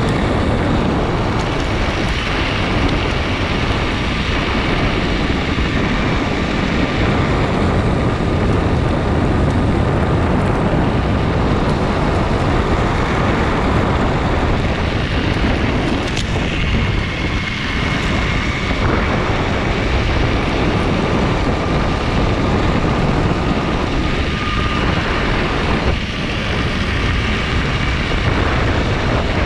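MetroboardX electric skateboard rolling fast over a gravel trail: a loud, steady rumble of its air-filled wheels on gravel, mixed with wind on the microphone. A faint high whine from the belt-driven motors comes and goes.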